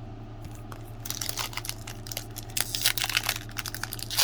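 Hockey trading cards and their foil pack wrapper being handled and crinkled: a dense run of small crackling clicks starting about a second in, over a steady low hum.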